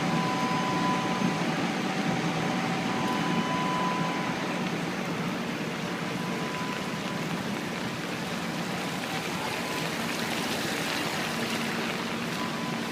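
Steady rushing of floodwater, an even wash of noise with faint steady tones running under it early on.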